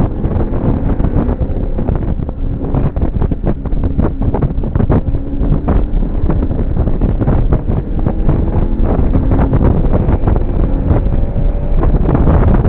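Heavy wind buffeting on the microphone inside a Cadillac CTS-V at track speed, with the car's engine note running underneath, its pitch rising and falling gently.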